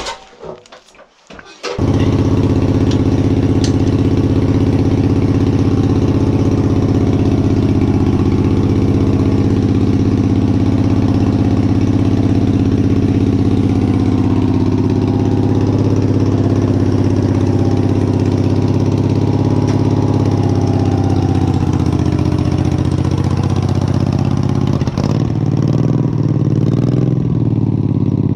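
Wheel Horse garden tractor's engine catching about two seconds in and then running steadily; near the end the engine note changes.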